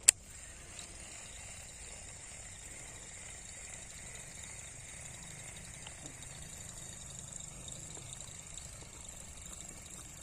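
One sharp click just after the start, then a steady high-pitched insect chorus, cricket-like, that holds unchanged throughout.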